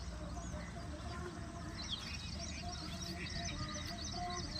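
Several birds chirping and calling at once, a dense run of short overlapping chirps, over a low steady background rumble.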